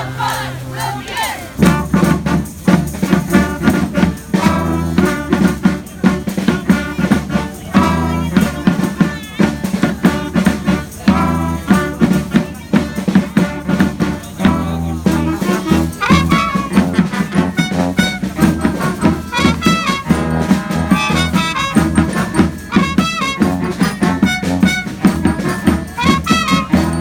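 Street brass band playing a lively tune, with horns over a steady low bass line and a regular drumbeat. The full band comes in about a second and a half in.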